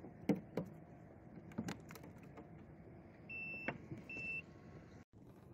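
Scattered clicks and knocks of gear being handled aboard a plastic fishing kayak, with two short high electronic beeps a little over halfway through, under a low steady hiss.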